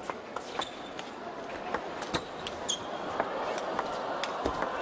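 Table tennis rally: the celluloid ball clicking off bats and table again and again as an attacker loops against a defender chopping from far back, with short shoe squeaks on the court floor. Crowd noise swells over the last second or two.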